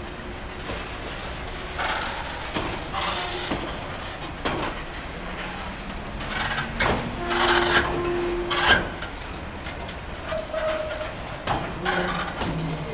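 Freight train of heavy flatcar wagons rolling slowly past, with the wagons giving off irregular knocks and clanks and a few short squeals over a steady low rumble.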